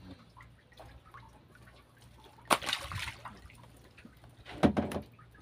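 Two short splashes of water, about two seconds apart, as live fish are handled in water.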